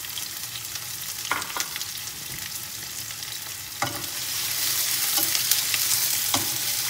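Chopped onion, garlic and celery sizzling in olive oil in a frying pan while being stirred with a wooden spatula, with a few light knocks against the pan. The sizzle grows louder about four seconds in.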